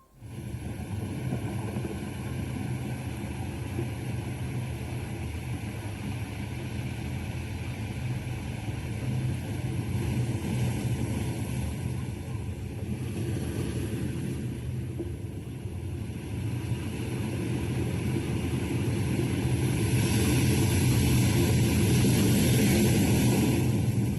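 Recorded ocean wave ambience played through a Google Home smart speaker: a steady rush of surf that swells and eases slowly, rising louder in the second half.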